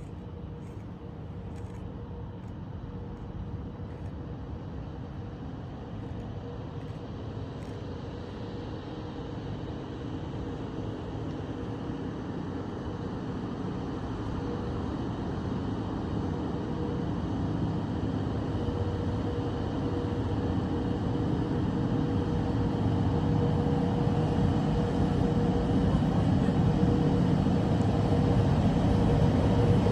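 A diesel-powered train approaching, its engine rumble and steady drone growing steadily louder throughout.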